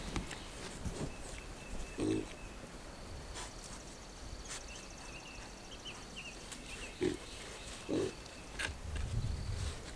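Pigs grunting: three short, separate grunts spread across a few seconds, with no other loud sound between them.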